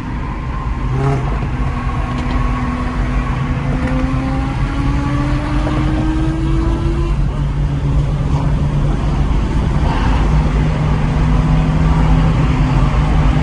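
Car engine running under acceleration over a deep, steady rumble, one engine note climbing slowly in pitch for several seconds before dropping back about seven seconds in.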